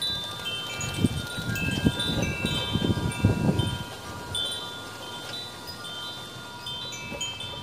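Wind chimes ringing: several metal tubes struck in no set rhythm, their clear tones overlapping and sustaining. Gusts of wind buffet the microphone from about one to four seconds in.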